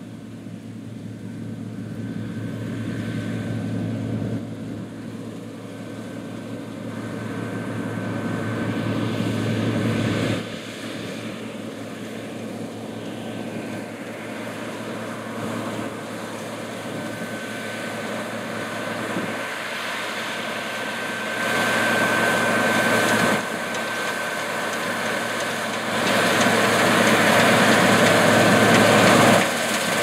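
New Holland CR8090 twin-rotor combine harvester running under load while cutting wheat, its diesel engine and threshing machinery making a steady drone with a thin steady whine on top. It grows steadily louder as the machine comes closer.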